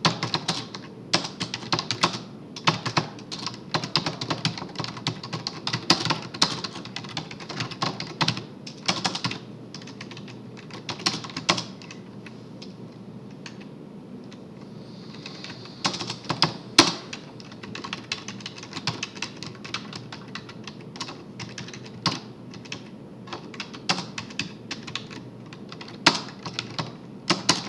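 Typing on a computer keyboard in quick runs of keystrokes, with a lull of a few seconds near the middle.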